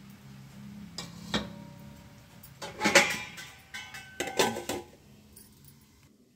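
Steel lid being set onto an aluminium steamer pot: a couple of light clinks, then two bouts of metal clattering with ringing, the loudest about three seconds in and the second about a second and a half later.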